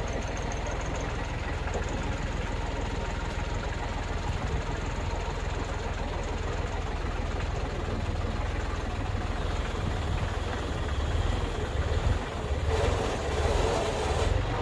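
Compact tractor engine running steadily while its front-loader bucket is lowered slowly onto a tire to break the bead. A louder stretch comes about thirteen seconds in.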